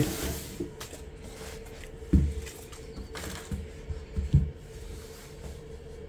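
Quiet handling of a cardboard shoe box being pushed aside on a desk mat: two soft thumps, one about two seconds in and another a little after four seconds, over a faint steady hum.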